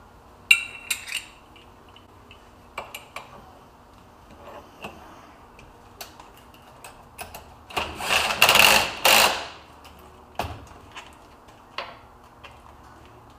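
Cordless impact driver hammering in two short bursts, about eight seconds in, tightening an end mill into a milling machine's spindle. Before it come scattered clinks of steel tooling being handled.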